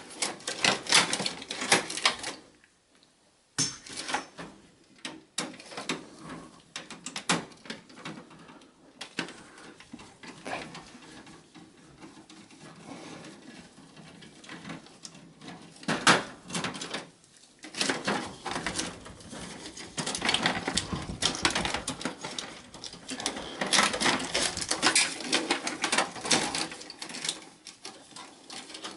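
Irregular clicking, rattling and rustling of cables, plastic connectors and tools being handled inside a steel desktop computer case, with a short break about three seconds in.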